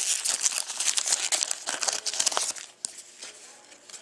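Silver foil wrapper of a Panini Titanium hockey card pack being torn and crinkled, a dense crackle for the first two and a half seconds or so, then dying down to a few light clicks as the cards come out.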